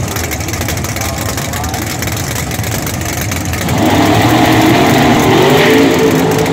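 Top Sportsman drag car's engine idling, then revving up about four seconds in and holding at higher revs.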